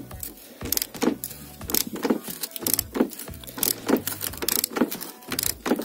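Hand socket ratchet clicking in quick, uneven runs while it unscrews a front-fender mounting bolt.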